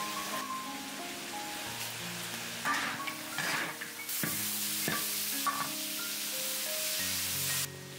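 Meat stir-frying in a hot iron wok: a steady sizzle, with the metal spatula scraping and knocking against the wok in the middle. About four seconds in the sizzle jumps louder and brighter as the poured-in sauce and liquid hit the hot pan, then cuts back just before the end.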